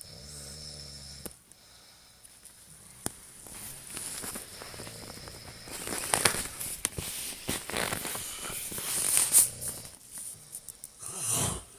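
A sleeping man snoring: a low buzzing snore in the first second, then noisy rasping breaths, and a loud snore about eleven seconds in.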